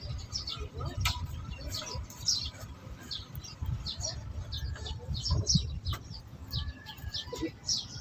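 Birds chirping over and over in quick short notes, with a steady low rumble underneath.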